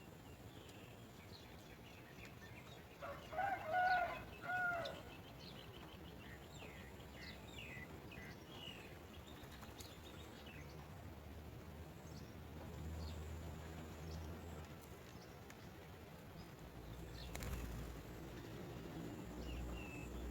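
Birds calling: a loud call of a few pitched notes about three seconds in, then faint, scattered high chirps.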